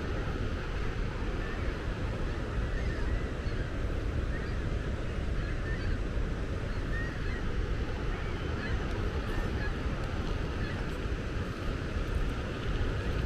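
Steady wind rush and rolling rumble from a moving bicycle, with faint short honking calls repeating at irregular intervals through it.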